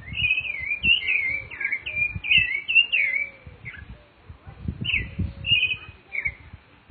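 Rufous-bellied thrush singing: a run of short warbling, fluting phrases, a brief pause near the middle, then more phrases. Low bumps and rumbles sound beneath the song.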